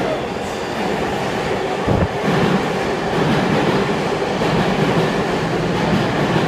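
New York City Subway R188 train arriving at an underground station, its wheels rumbling and clattering on the rails. The sound gets louder about two seconds in as the cars run close past along the platform.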